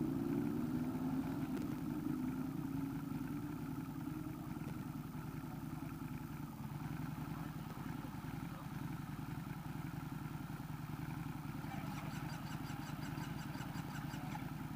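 A motorbike engine idling steadily. Near the end a quick run of light, high ticks sits over it.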